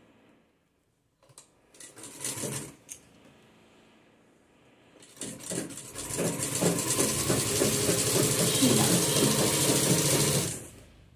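Sewing machine stitching fabric: a few short bursts about two seconds in, then a steady run of rapid stitching for about five seconds that stops shortly before the end.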